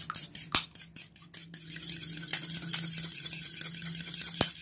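Metal fork beating yogurt in a ceramic bowl: quick clicks of the tines against the bowl, running into fast steady scraping in the middle, with a sharp clink near the end.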